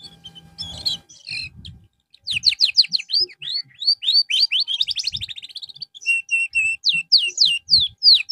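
Domestic canary singing a long, varied song from about two seconds in: quick series of falling whistled notes, a rolling trill, and a run of repeated short notes near the end.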